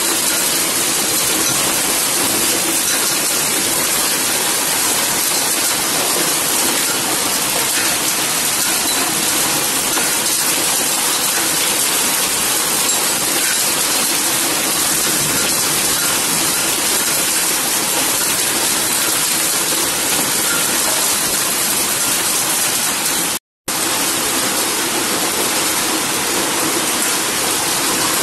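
Hailstorm with heavy rain pelting down: a steady, dense hiss, broken once by a split-second gap near the end.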